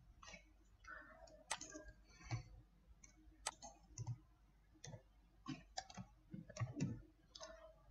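Faint, irregular clicks and taps of a computer keyboard and mouse as code is typed and edited.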